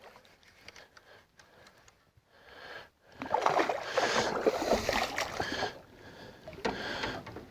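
Water splashing and sloshing beside a small boat, loudest for about three seconds in the middle, with scattered light knocks and clicks around it.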